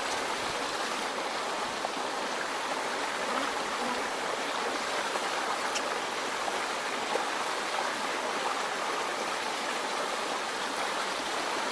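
A stream running over stones: a steady, even rush of water with no let-up.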